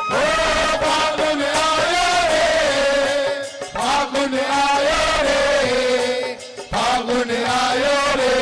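Live Holi bhajan music: dholak and tabla drumming under a wavering melody, with two brief dips in level.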